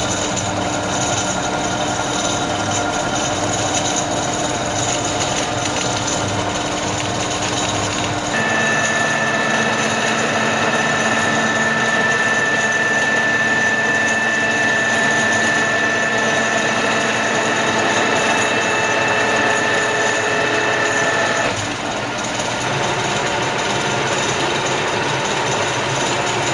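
Radial drilling machine running, a steady mechanical hum with a gear whine. About eight seconds in, the tone shifts and a higher, slightly louder whine comes in, which drops away about twenty-one seconds in.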